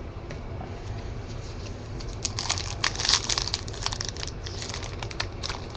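Crinkling and rustling as trading cards and their foil pack wrapper are handled. It comes as a dense run of short crackles from about two seconds in, over a faint steady low hum.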